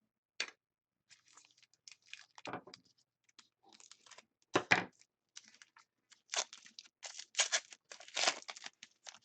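A hockey card pack's wrapper being torn open and crinkled by hand, in irregular crackling tears with a few louder rips.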